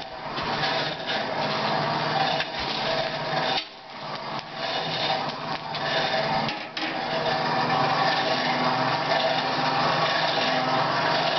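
Continuous rasping scrape of a tool working the forged iron hook, broken by two short pauses, just under four and about six and a half seconds in.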